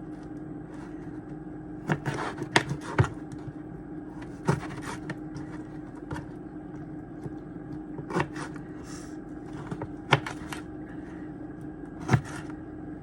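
Knife cutting a lemon into chunks: irregular sharp knocks, about eight in all, over a steady low hum.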